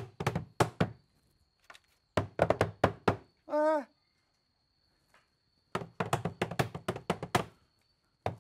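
Three bursts of rapid knocking on a hard surface, each a quick run of five or six sharp knocks lasting about a second. Between the second and third burst comes a short, wobbling vocal sound.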